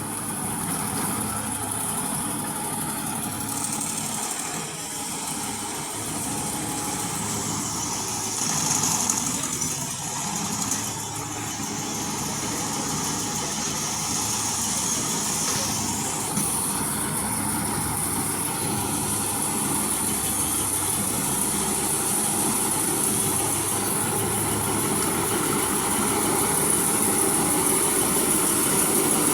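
Maxxi J Automatic rice combine harvester running steadily, its engine and machinery droning with a high whine over them that drops lower for a stretch in the middle.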